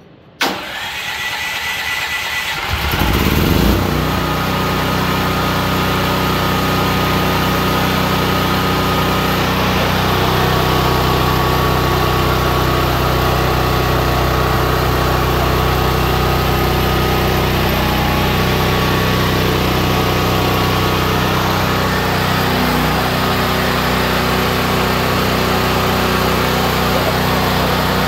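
Benchmark BG11500E generator's 457cc single-cylinder OHV gas engine being remote-started. The electric starter cranks for about two seconds, the engine catches and picks up speed, then settles into a steady run.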